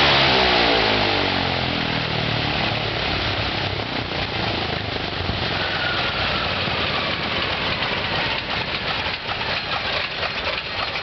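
Ilyushin Il-14T's ASh-82T radial engine shutting down: its note falls in pitch and level over the first couple of seconds. The propeller then winds down with a rough, unsteady run, breaking into uneven knocks in the last few seconds.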